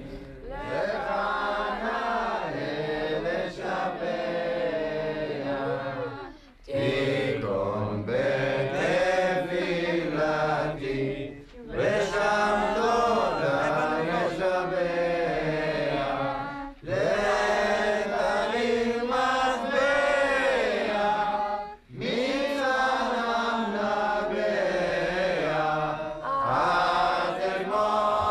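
A group of voices chanting a prayer together, sung in long phrases with a short pause about every five seconds.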